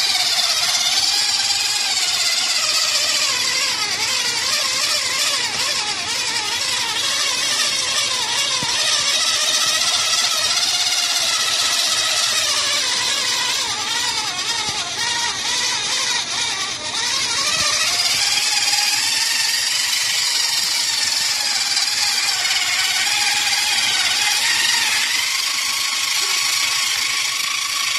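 Chef's Kitchen cordless can opener, run by 2 AA batteries, with its small motor whining steadily as the self-traveling blade works its way around the can just below the rim. The pitch wavers slightly as it goes.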